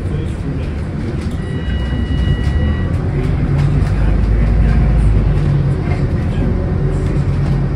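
Scania K360UA articulated bus running on the road, its engine and road noise heard from inside the passenger cabin, the engine note building from about three seconds in as it pulls harder. A brief electronic beep sounds about a second and a half in.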